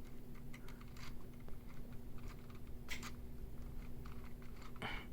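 Light plastic clicks and rattles of a LEGO Technic model being handled while its gears are turned, with two louder clacks, one about three seconds in and one near the end.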